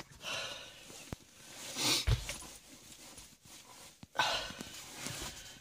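A man huffing out three noisy puffs of breath, with a single sharp click a little after one second in.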